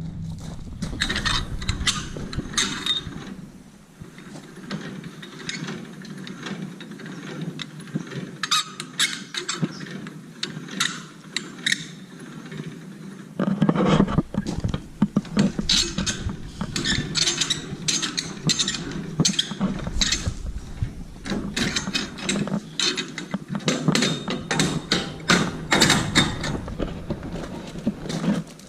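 Irregular metallic clanking, clicking and ratcheting of a trailer being hitched up, with its hitch and chains handled, over a steady low hum; the clanking gets busier about halfway through.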